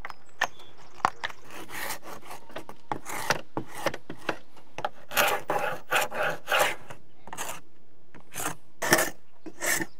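Old, flaking paint being scraped off exterior door frame trim by hand: a series of short scraping strokes at irregular intervals, coming closer together and louder in the second half.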